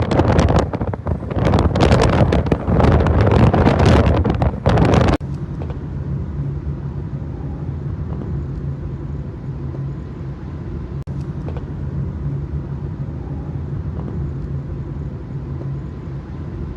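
Wind gusting hard against the microphone, then an abrupt cut about five seconds in to a steady low mechanical hum that lasts the rest of the way.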